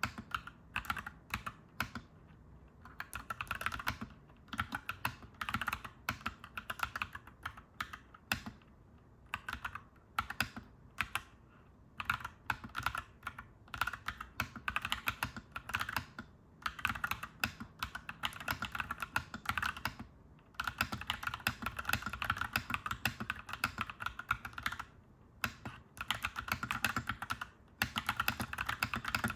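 Clacky mechanical keyboard being typed on steadily, in fast runs of key clacks broken by brief pauses.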